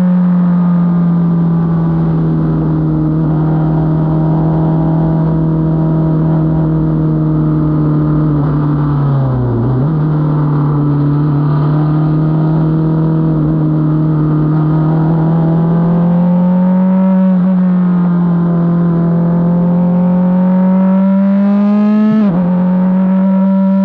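F4 race car's engine running hard, heard from on board over wind and road noise. Its pitch holds fairly steady, dips and recovers about nine seconds in, climbs slowly, then breaks off suddenly near the end, as at a gear change.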